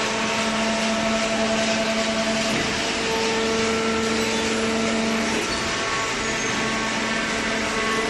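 Fully automatic hydraulic waste-paper baler running: a steady mechanical din with a hum and whine from its hydraulic power unit. The pitch of the hum shifts about two and a half seconds in and again about five and a half seconds in.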